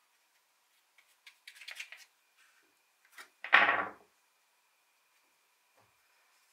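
Quiet workbench handling sounds: faint taps and a brush scraping glue, then one louder, short rustling thump about three and a half seconds in as a thin dark sheet is picked up and handled over the glue board.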